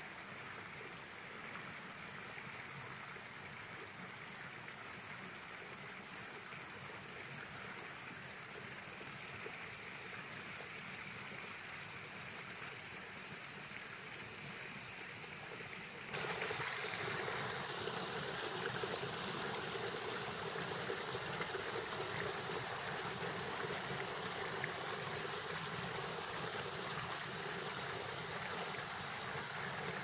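Shallow stream running over rocks: a steady rush of flowing water. About halfway through it cuts suddenly to a louder, fuller rush of water.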